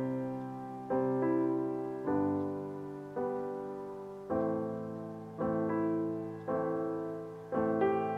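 Background music of slow piano chords, a new chord struck about once a second and fading before the next.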